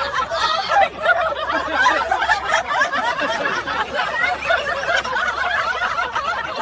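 People laughing hard in a continuous run of giggles and chuckles, with no words.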